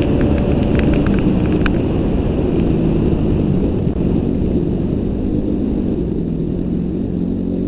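Dirt bike engine running under way on a dirt trail, its pitch rising and falling with the throttle. A few sharp ticks, such as stones hitting the bike, come in the first two seconds.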